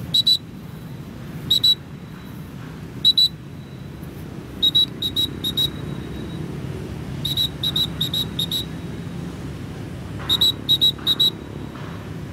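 Short, loud, high-pitched whistle-like pips at one steady pitch, singly at first, then in quick runs of four to six, over a steady low rumble.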